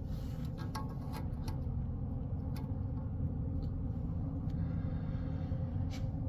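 Steady low hum of shop machinery with scattered light clicks and taps from handling tools and fittings around the boring machine.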